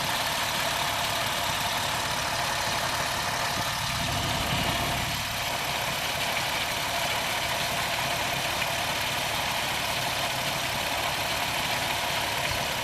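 2007 Jeep Wrangler Unlimited's 3.8-litre V6 running steadily at idle, with no separate grinding event standing out.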